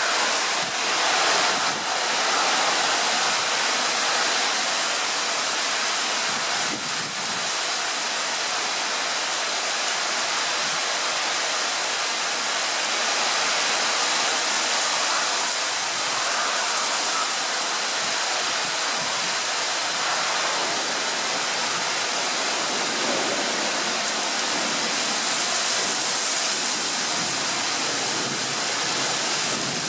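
Heavy storm rain pouring down steadily, an even rushing hiss.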